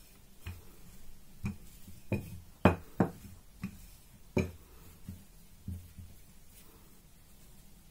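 Wooden rolling pin knocking against a silicone mat on the counter as dough is rolled back and forth: a run of irregular dull knocks, the loudest about three seconds in, fading out in the last couple of seconds.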